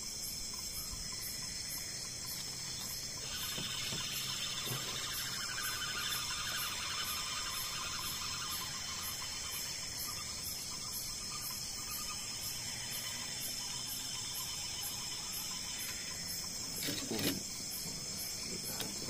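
Night insects, mostly crickets, chirping in a steady high-pitched chorus with an even, rapid pulse. A few soft knocks sound about 17 seconds in.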